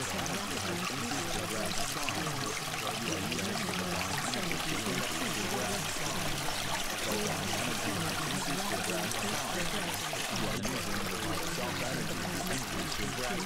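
Steady, unbroken rushing of running water, even throughout.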